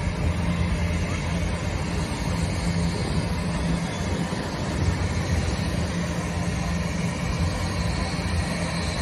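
Boeing C-17 Globemaster III's four turbofan engines running steadily with a constant low hum as the jet manoeuvres at the runway end, heard from a short distance.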